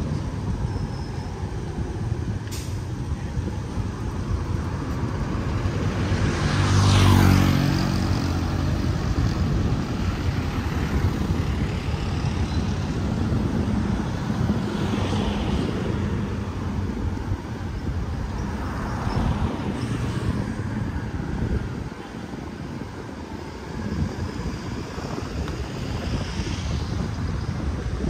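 Road traffic going by: one engine passes close and loud about seven seconds in, and a few quieter vehicles pass later, over a steady background hum of traffic.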